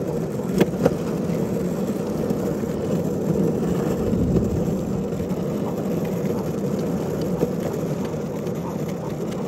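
Steady rumble of wind and handling noise on a handheld phone's microphone during a brisk walk, with two sharp clicks just under a second in.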